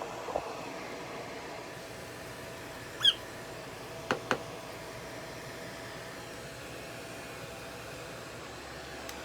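A prairie dog gives one short, high squeak about three seconds in, falling in pitch. Two sharp clicks follow about a second later, over a steady low hum.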